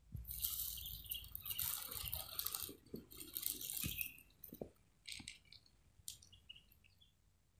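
Plastic bag of dry cat food rustling and crinkling for about four seconds as a hand digs into it, with the kibble rattling inside. A few faint separate clicks follow.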